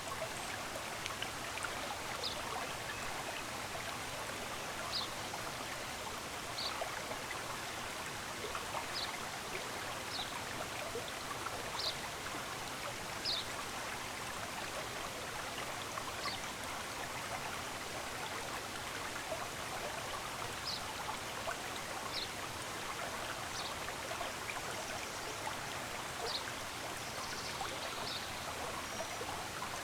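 Running stream, a steady rush of water, with brief high bird chirps every second or two.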